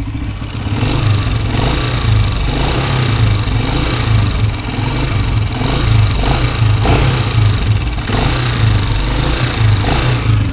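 Honda CG125's single-cylinder four-stroke engine running at a steady idle, getting a little louder about a second in. It gives the engine noise that the mechanic calls dangerous and treats by resetting the adjuster screw under the cylinder-head cap, which points to tappet (valve clearance) noise.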